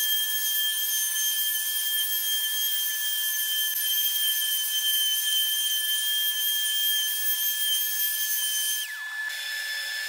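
DeWalt random orbital sander running on pine boards with a steady whine and sanding hiss. About nine seconds in, its pitch drops quickly and the level falls.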